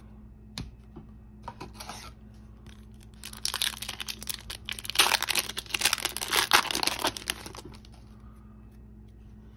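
A shiny foil hockey-card pack wrapper being torn open and crinkled in the hands: a crackling rustle of about four seconds, loudest in its second half, with a light tap shortly before it.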